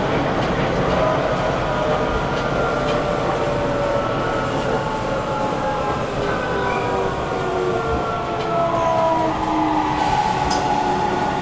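Sendai Subway 1000N-series train running, heard from inside the car: a steady rumble of wheels on rail, with a set of motor whine tones sliding slowly down in pitch as the train slows.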